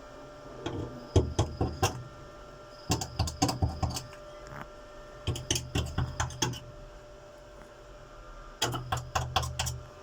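Electric arc welder in four short bursts of rapid, sputtering crackle over a low buzz, each lasting about a second; the arc keeps stopping instead of running steadily.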